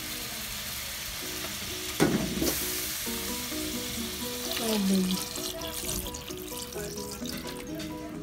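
Background music with a simple repeating melody over a steady hiss, with a short burst of noise about two seconds in.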